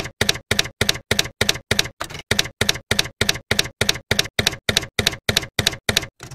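Typewriter key strikes as a sound effect, an evenly paced run of about three clacks a second, one for each letter typed out, stopping just before the end.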